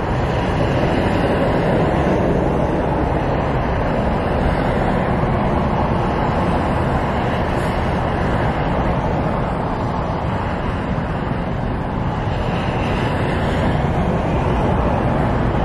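Steady road traffic noise with a low rumble, heard from inside a vehicle cab.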